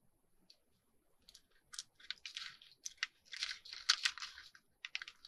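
Clear plastic sheet with playing cards stuck to it crinkling and rustling as it is handled, in a string of short irregular rustles that start about a second in.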